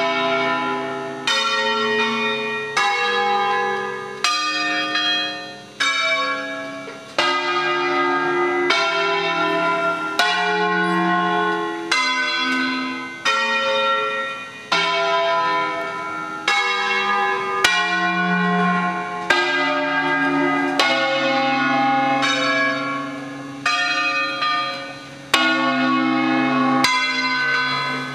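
Church tower bells rung electrically for a solemn peal, swinging and striking in turn at about one stroke every second and a half, each new note ringing over the fading one before.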